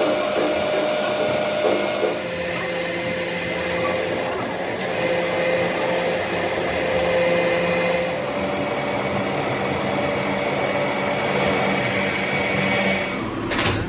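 Metalworking machine running steadily, a motor's whine with several held tones over a noisy hiss; the sound shifts about two seconds in and a couple of sharp knocks come near the end.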